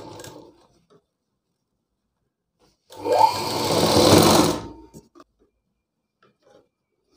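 Black straight-stitch sewing machine stitching in one burst of about two seconds, its whine rising in pitch as it gets up to speed. Just at the start, the last moment of an earlier run is heard.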